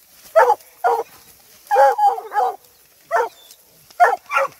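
Hunting dogs barking, about eight short excited barks, some coming in quick runs, at an iguana held up out of their reach.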